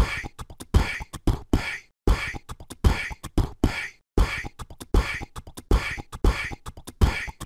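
Beatboxing: a voice making a steady drum beat, with deep kick sounds about one and a half times a second and sharp clicks and hisses between them.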